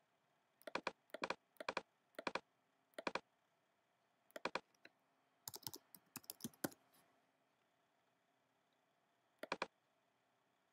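Computer mouse and keyboard clicking: short sharp clicks, each a quick double tick, spaced about half a second apart, then a quicker run of clicks around the middle as a word is typed, and one last click near the end.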